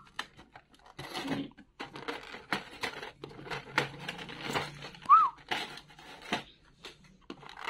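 Clear plastic blister trays and packaging crinkling and clicking as they are handled, in a quick irregular run. A short whistle-like chirp, rising then falling, cuts in about five seconds in.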